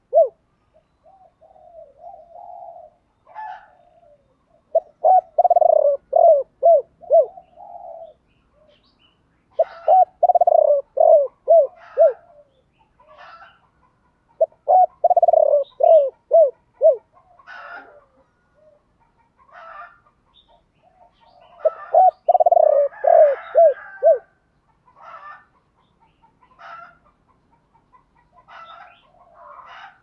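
Spotted dove cooing: runs of quick, rapidly repeated coos in about four phrases several seconds apart, with fainter high chirps in between.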